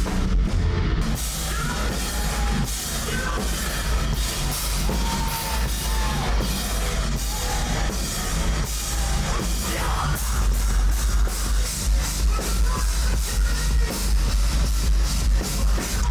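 Heavy metal music with a fast drum kit and distorted guitars.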